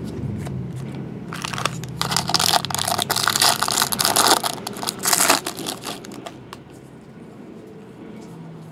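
Foil wrapper of a baseball card pack being torn open and crinkled by hand, a loud crackling rustle from about a second in until just past halfway. It then drops to faint handling of the cards.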